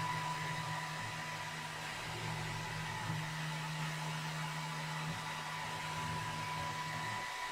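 Roly Laser XW's stepper motors driving the laser head around the design's outline in a slow framing pass. A steady low motor hum changes pitch about every two seconds as the head turns each corner, then stops shortly before the end, over a steady thin background whine.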